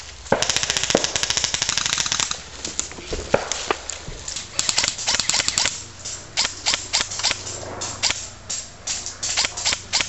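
Airsoft electric rifles firing. A long full-auto burst of rapid, evenly spaced clicks comes about half a second in and lasts nearly two seconds. A shorter burst follows about halfway through, with scattered single shots after it.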